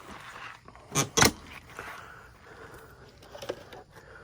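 Two quick sharp knocks about a second in, close together, over faint rustling from objects being handled.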